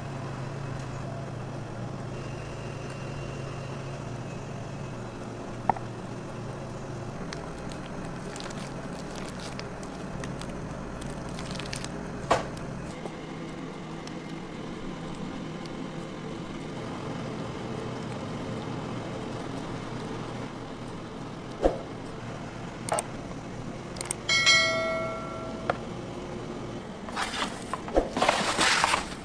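Steady hum of kitchen equipment with a few sharp clinks of metal tongs and pans, a short run of electronic beeps about three-quarters of the way through, and metal baking pans clattering near the end.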